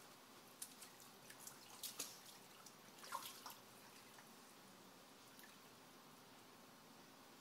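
Near silence with a few faint water drips and small splashes in a baptismal tank, clustered in the first three seconds or so.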